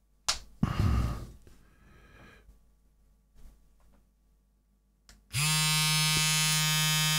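A click and some handling noise in the first second or so. About five seconds in, a budget cordless hair trimmer switches on and runs with a noisy, steady buzz that the fitted guide comb does not quieten.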